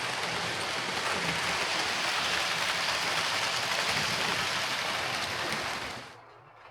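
OO gauge model train running on the layout track: a steady rushing noise of wheels and motor that fades away sharply near the end.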